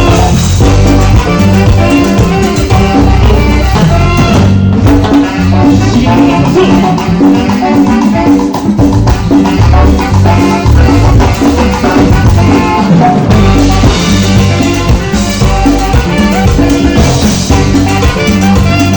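Live band playing a Latin dance tune, with a rhythmic bass line, drums and percussion, loud and steady, without singing.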